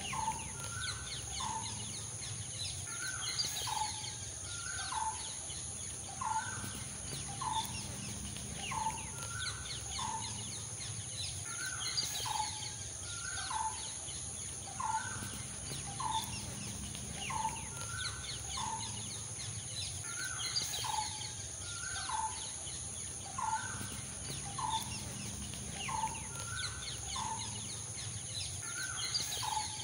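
A bird calling over and over: a short rising note repeated about once a second.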